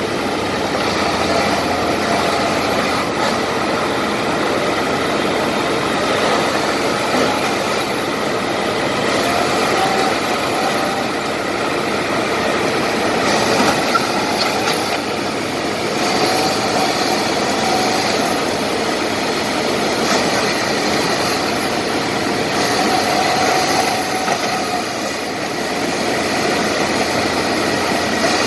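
Diesel engines of two Komatsu D70LE crawler bulldozers working under load as they drag a huge log, a steady heavy engine noise with a faint whine that swells and fades several times.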